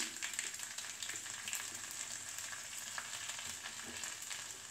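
Crushed garlic and mustard seeds sizzling in hot coconut oil in a small tadka pan: a steady frying hiss dotted with fine pops, easing slightly as the pan cools with the gas turned off.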